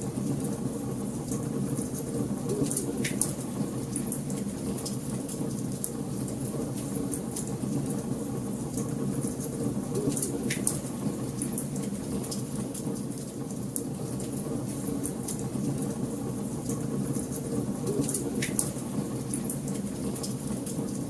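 Wood fire burning in a fireplace: a steady low rumble of flames with scattered crackles and pops, three of them louder snaps.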